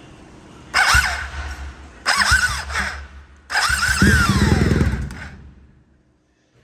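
BMW R 1250 GS Adventure starter motor cranking in three short bursts, the last the longest, with a loud, noisy whine that falls in pitch as each burst ends. This is the starter noise the mechanic calls "bastante barulho" and means to take the starter off to find.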